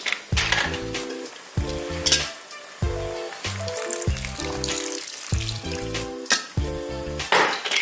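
Manila clams sizzling in a hot frying pan, under background music with a repeating bass line.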